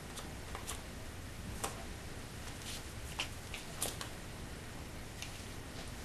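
Light, irregular plastic clicks and taps, about half a dozen, as a small dog paws and noses a hollow plastic Kinder egg capsule against a door frame and floor.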